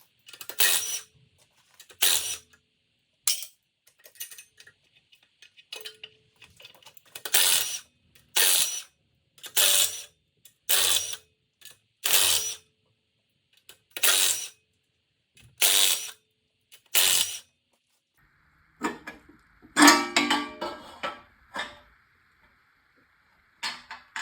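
Hand ratchet wrench clicking in repeated short strokes, about one every second or so, backing off the fasteners of an LS V8's windage tray and oil pickup tube. Near the end comes a brief clatter of loose metal parts.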